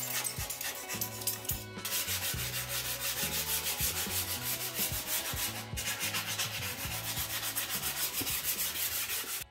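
Nail filing sticks sanding a carved white hill, a steady run of quick back-and-forth rubbing strokes with two brief breaks.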